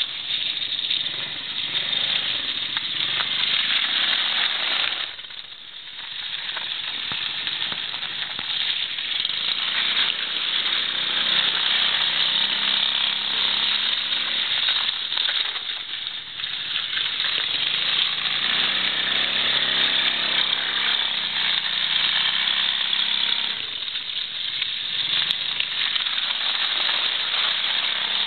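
Small 110cc ATV engine running and revving as the quad is ridden, its pitch rising and falling with the throttle. It eases off briefly about five seconds in and again a few seconds before the end.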